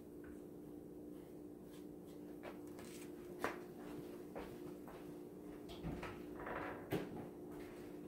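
Faint kitchen clatter: a few scattered knocks and clacks of things being handled and set down, the sharpest about three and a half seconds in and again near seven seconds, over a steady low hum.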